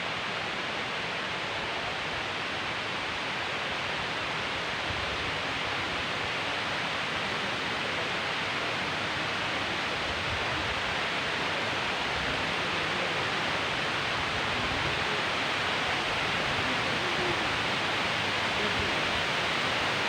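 Steady rush of a waterfall, a dense even hiss that slowly grows louder.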